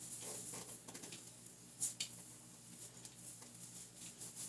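Faint handling noises: light rustling with a couple of sharp clicks about two seconds in, as of hands picking up and handling a hair-product container in a small room.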